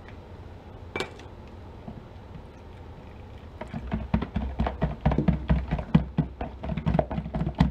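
Stick blender head stirred by hand through soap batter, knocking and scraping against the mixing bowl in quick, irregular strokes from about halfway through. There is a single click about a second in.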